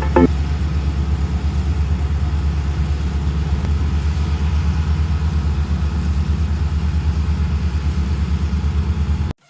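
Engine of a rice-harvesting farm machine running steadily with a low, evenly pulsing rumble, cutting off suddenly near the end.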